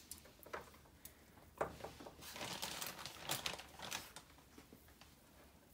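Plastic bag and foil crinkling, with soft clicks and taps as raw chicken drumsticks are set down on a wire rack in a sheet pan. The rustling is busiest a couple of seconds in.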